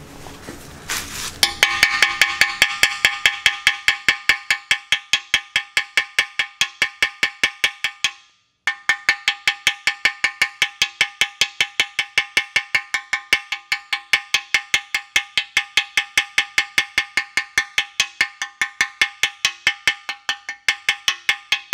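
Hammer rapidly peening a fresh flux-core weld bead on a cast-iron Chrysler 361 big-block, about four blows a second. Each blow makes the block ring at the same few bell-like pitches. The hammering stops briefly about eight seconds in.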